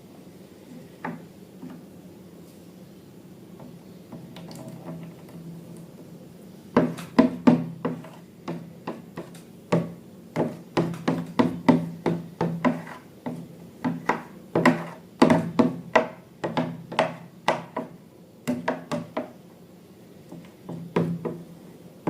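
Slime being mixed and worked: a quick irregular run of sharp sticky clicks and knocks, several a second, starting about a third of the way in and trailing off near the end.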